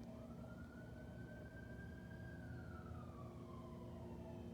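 A faint emergency-vehicle siren wailing: its pitch rises, holds, slowly falls, then starts to rise again near the end. A steady low hum lies beneath it.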